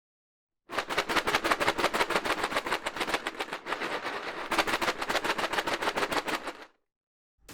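A rapid, even clatter of sharp clicks, about ten strokes a second, which starts about a second in and stops abruptly near the end.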